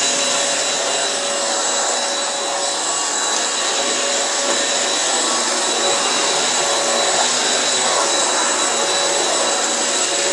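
Hihhy cordless stick vacuum cleaner running steadily, a high whine over a rushing hiss.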